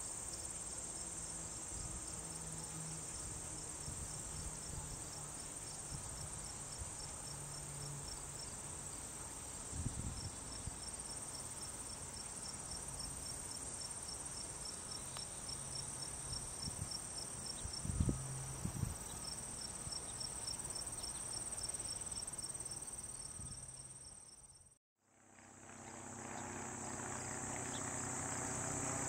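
Insects trilling in a summer prairie field: a steady high-pitched buzz with a second insect calling in quick, regular pulses. A few low bumps break in, the loudest about 18 seconds in, and the sound fades out and back in near the end.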